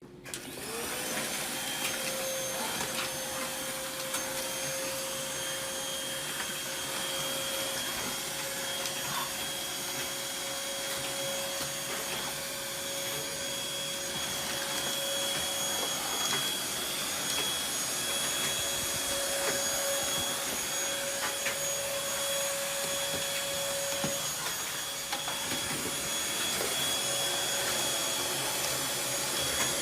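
Vacuum cleaner switched on, its motor spinning up to a steady whine with a high-pitched edge and running on with a rush of air. The pitch wavers briefly a few times.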